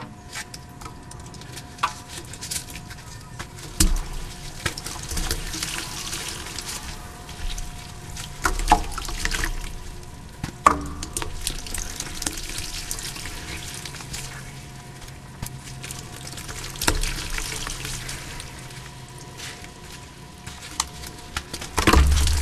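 Wet gym chalk being crushed and squeezed by gloved hands in a bowl of water: crumbling, squelching and splashing, with sharp cracks as pieces break off.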